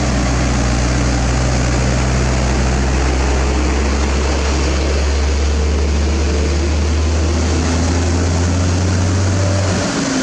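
Heavy diesel truck (an Isuzu Giga self-loader hauling a dump truck) driving past close by: a steady, deep engine drone over tyre and road noise. The deepest part of the drone cuts off near the end as the truck moves on.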